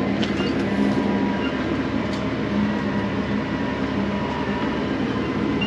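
Tractor engine running steadily while the hydraulically driven 24-foot dump box unloads sawdust, a continuous mechanical rumble with a faint steady whine.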